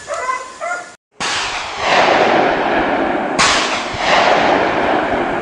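A hound barks a few times until about a second in. Then come two loud gunshots about two seconds apart, each followed by a long rolling echo.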